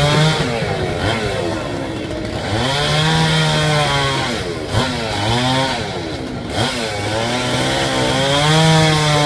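Two-stroke chainsaw carving wood, its engine revving up to full speed and dropping back about four times as the throttle is worked.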